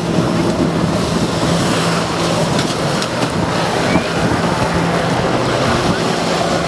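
Jet ski engine running steadily at high power to drive a flyboard through its hose, with the rush and splash of the flyboard's water jets.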